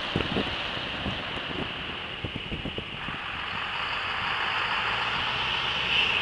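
Scania V8 truck engines pulling away, with wind buffeting the microphone. About halfway through, a second truck's engine grows steadily louder as it comes closer.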